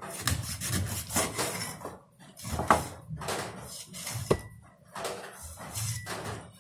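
Cleaver cutting into raw chicken wings on a wooden chopping board: irregular knocks and short scrapes of the blade against the board, with two sharper knocks near the middle.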